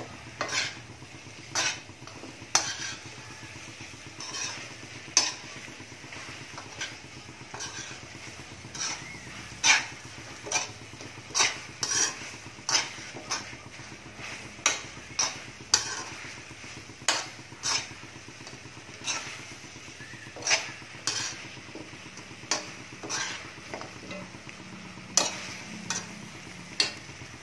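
A metal spoon scrapes and clinks against a metal wok, irregularly about once or twice a second, as chicken feet in adobo sauce are stirred. Under it is a steady low sizzle as the sauce is cooked down to dry it out.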